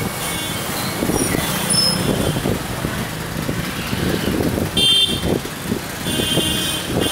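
Street traffic on a wet road: cars and motor scooters passing, with a vehicle horn sounding briefly about five seconds in and again near the end.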